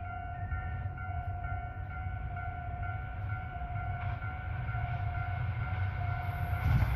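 Kiha 261 series diesel limited express approaching, its low engine and rail rumble growing steadily louder, with a rising hiss near the end. A repeating electronic warning chime sounds over it throughout.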